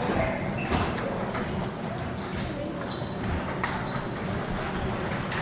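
Table tennis balls clicking irregularly against bats and tables, with faint voices in the background.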